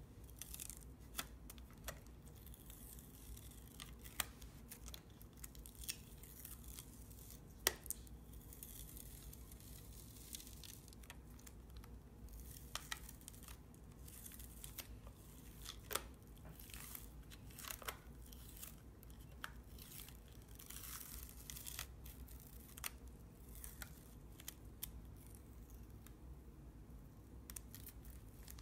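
Dried masking fluid being peeled and rubbed off watercolour paper with the fingertips: faint rubbery tearing and crackling, with many irregular sharp little ticks.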